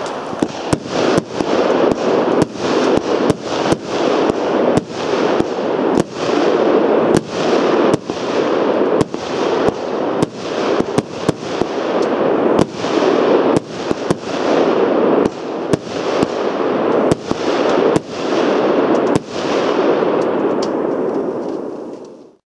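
A Heron PSP 1-21 firework going off: a continuous loud hiss broken by sharp cracks about one and a half times a second, each followed by a swell of hissing. It dies away and stops near the end.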